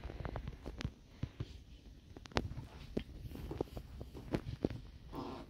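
Small books being handled and set down: scattered, irregular light taps and clicks, with a faint murmur of a voice near the end.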